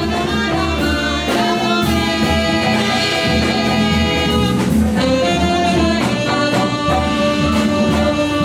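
Jazz band music with sustained melody notes over a pulsing bass.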